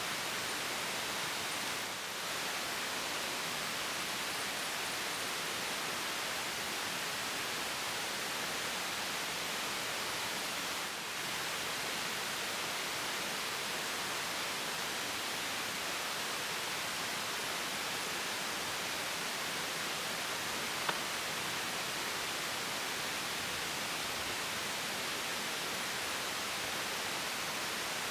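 A steady, even hiss of outdoor background noise, with one short click about 21 seconds in.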